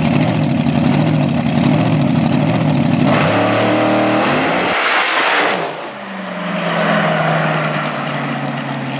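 Dragster engine running at the start line, then rising in pitch as it launches about three seconds in, with a loud roar around five seconds. After that a steadier engine drone continues.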